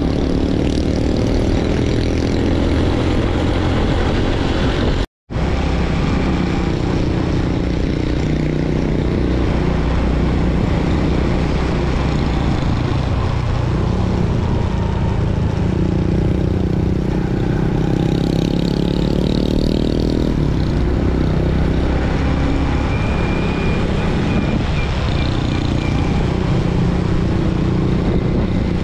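Motorbike engine running at riding speed under heavy wind rush on the microphone, its pitch rising and falling with the throttle. The sound cuts out for a moment about five seconds in.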